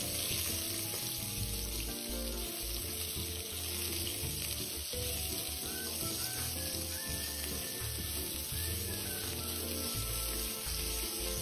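Sliced white onion and fish cake strips sizzling steadily in hot oil in a wok as they are stir-fried with a spatula.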